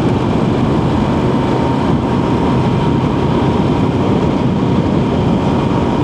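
Motorcycle ride at road speed: steady engine and road noise mixed with wind rushing over the microphone, with a thin steady whine over the top.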